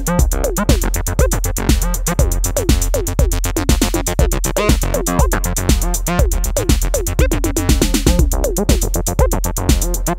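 Acid techno jam: a step-sequenced Korg MS-20 synth line whose notes each sweep downward, over a Roland TR-606 drum kit played from an Akai MPC, with a steady kick and fast hi-hats.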